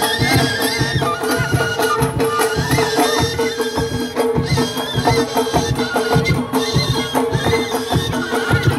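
Traditional Amazigh folk music for the Ajmak dance: a wavering high melody over a steady drone, with drum beats at about two a second.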